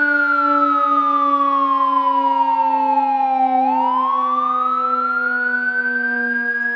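Fire truck siren wailing: its pitch falls slowly for about three and a half seconds, then climbs back up, over a steady low tone underneath.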